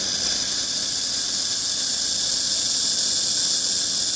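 Andes handheld laser welding machine running a weld seam on sheet steel: a steady high hiss at an even level.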